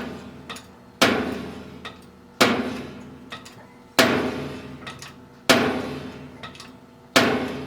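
Hammer striking metal: five sharp blows about a second and a half apart, each ringing out and dying away before the next.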